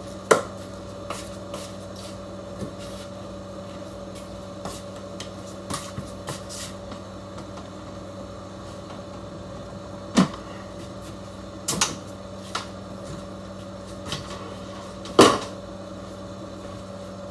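A steady electrical hum, with scattered sharp knocks and clicks of objects being handled and set down. The loudest knocks come about ten and fifteen seconds in.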